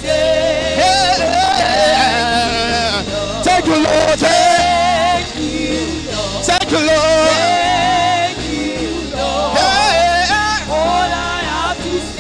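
Gospel worship song sung live over band accompaniment, with long, wavering sung notes.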